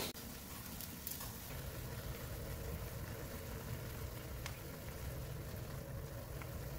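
Instant ramyun broth boiling hard in a cast-iron pan over a gas burner: a steady bubbling rumble. Wooden chopsticks click lightly against the pan a few times as they loosen the noodles.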